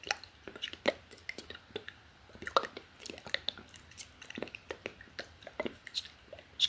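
Close-miked inaudible ASMR whispering with wet mouth sounds: a quick, uneven run of tongue clicks and lip smacks between breathy, unintelligible whispered syllables.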